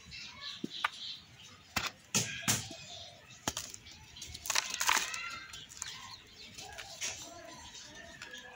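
Hands crushing dry moulded cups of yellow soil and sand-cement into powder: gritty crunching and crumbling, with a run of sharp cracks about two seconds in. A bird, chicken-like, calls in the background about five seconds in.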